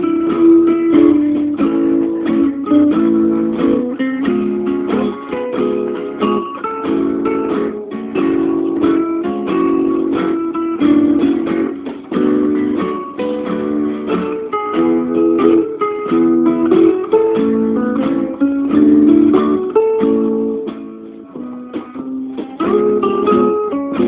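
Acoustic guitar music, with many notes plucked in quick succession and some strummed chords.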